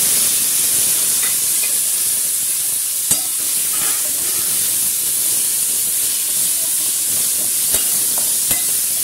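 Chopped onion, tomato and green chilli sizzling in hot oil in a wok-shaped pan, a loud, steady hiss. A few sharp clicks of the spoon against the pan as the vegetables are stirred.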